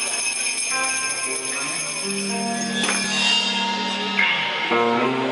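Live band music: electric guitars holding ringing chords that change every second or so, with a bright, bell-like shimmer in the high end.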